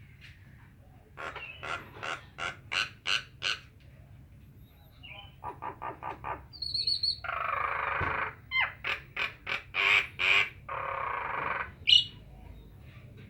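Nias hill myna calling: a run of short, loud, harsh notes, a quicker burst of notes, then two longer raspy calls between further single notes, and one sharp high note near the end.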